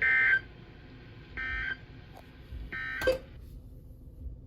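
NOAA Weather Radio's EAS/SAME end-of-message data signal: three short bursts of warbling digital tones about 1.3 s apart, marking the end of the alert message. A sharp click comes about three seconds in.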